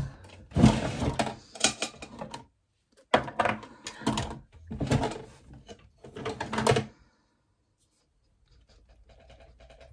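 Makeup products and containers being handled and rummaged through, rustling and clattering in four bursts.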